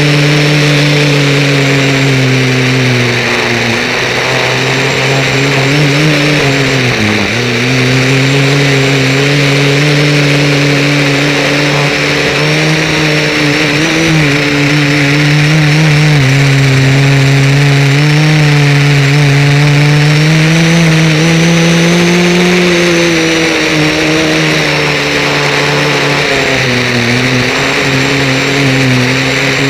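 Motor and propeller of a remote-controlled model aircraft heard from its onboard camera, a steady whine whose pitch shifts with the throttle, dropping sharply about seven seconds in and climbing a little later on.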